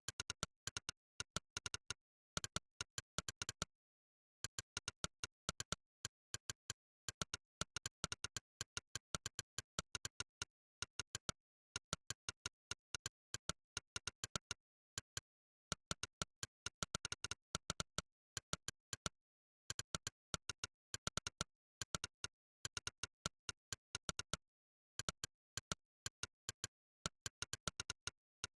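Monkeytype's 'click' keypress sound effect: a short, sharp synthetic click for each keystroke, several a second in irregular runs at typing speed, broken by a few brief pauses, with dead silence between clicks.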